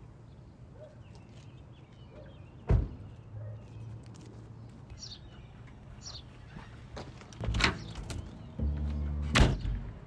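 Outdoor ambience: birds chirping over a low background, with a sharp knock about three seconds in and two more knocks near the end, the last over a steady low hum.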